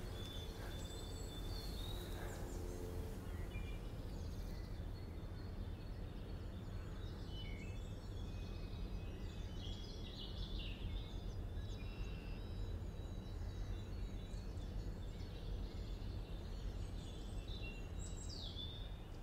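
Woodland ambience: small birds singing with short chirps and quick whistled glides over a steady low rumble.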